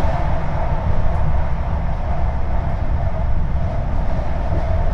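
Trenitalia regional train running, a steady rumble heard from inside the carriage.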